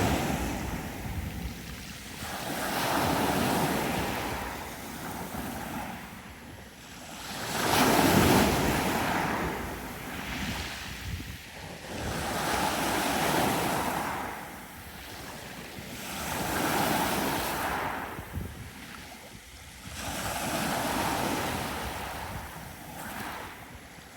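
Sea waves breaking on a beach, each surge rising and washing back in a slow rhythm, about one every four to five seconds.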